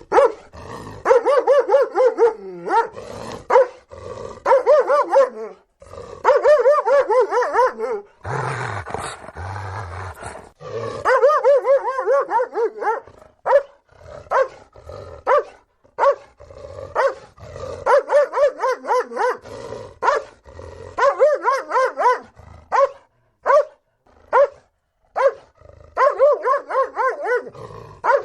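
Doberman barking in rapid volleys of short, deep barks, with a rougher growling stretch about eight seconds in.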